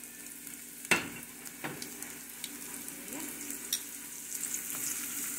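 Dried anchovies (dilis) sizzling as they fry in hot oil in a pot, the sizzle growing louder. A few sharp clicks, the loudest about a second in, come from metal tongs stirring the fish against the pot.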